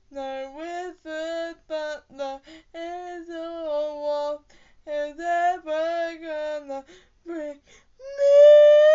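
A solo female voice singing unaccompanied in short phrases with brief pauses, ending about eight seconds in on a loud, held high note.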